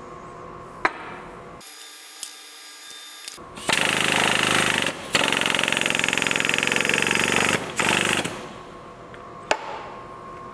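Air-driven hydraulic pump of a Fisher Engineering BT1B bend tester running with a loud, rapid chatter, powering the ram that bends a welded steel test coupon. It starts a few seconds in, stops briefly after about a second, then runs about three seconds more and cuts off. A few sharp clicks come before and after it.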